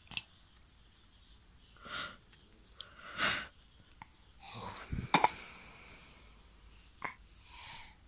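A sick toddler's noisy, congested breathing: a series of breathy, wheezy snuffles through a blocked nose, the loudest about three seconds in. A couple of sharp clicks come about five seconds in.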